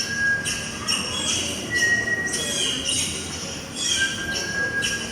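Recorded forest sound effect of bird calls: short high chirps and brief whistles in a pattern that repeats about every two seconds.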